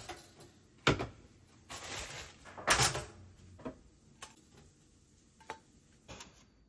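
Clicks and knocks from a pop-up toaster and a plate as toasted bagel halves are handled: a few sharp knocks in the first three seconds, then softer taps as the halves are lifted out of the toaster and set on the plate.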